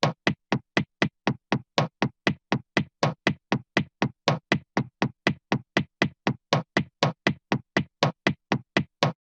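Axe-chop hit sound effect repeated fast, about four sharp strikes a second with dead silence between them, stopping just before the end.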